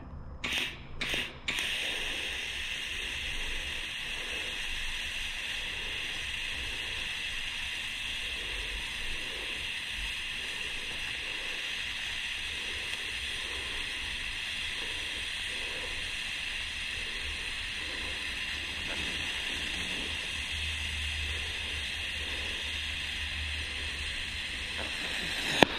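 TIG welding arc: a few short starts in the first second and a half, then one long, steady hiss as a bead is laid, cutting off just before the end.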